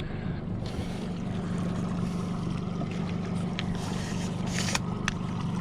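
Boat motor running steadily at low speed, a low even hum, with wind and water hiss and a few faint clicks over it.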